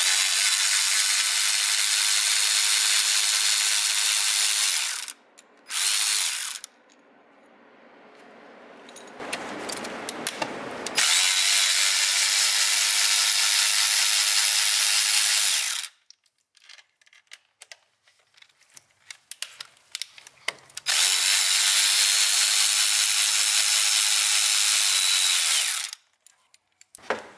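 Snap-on cordless electric ratchet running in several bursts of a few seconds each as it spins bolts out of the engine bracket. Short clicks and knocks of the socket and bolts come between the runs.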